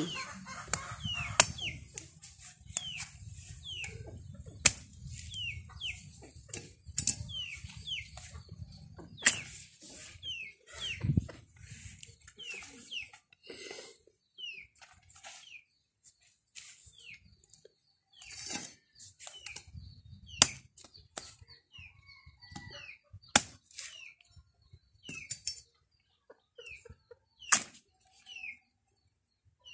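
Chickens calling in short falling peeps, repeated one or two times a second, mixed with sharp snaps and cracks as ripe saba bananas are handled and broken off the bunch by hand.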